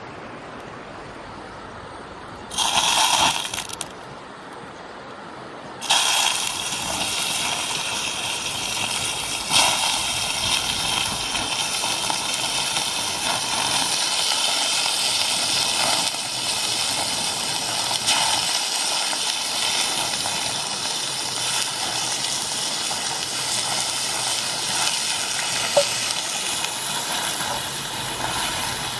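Pieces of frog frying in hot oil in a pan over a wood fire: a short loud sizzle about three seconds in, then a steady loud sizzle from about six seconds on.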